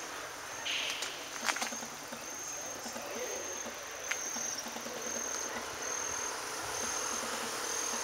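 An insect chirping in short, high-pitched pulses repeated at an even pace over a steady outdoor hiss, with a few brief clicks about a second and a half in.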